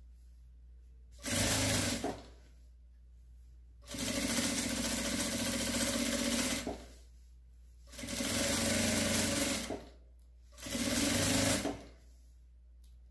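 Electric sewing machine stitching a seam through cotton patchwork fabric in four runs: a short one about a second in, a long one of nearly three seconds, one of about two seconds, and a short one near the end. Between the runs it pauses while the fabric is repositioned, leaving a low steady hum.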